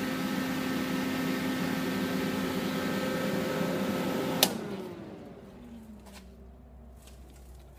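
Electric fan motor running with a steady hum and rushing air, switched off with a click about four and a half seconds in, then spinning down with a falling tone.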